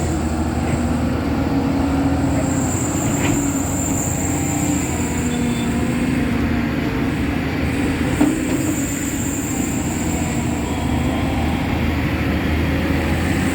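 Steady rumble of a moving vehicle, heard continuously, with a single sharp knock about eight seconds in.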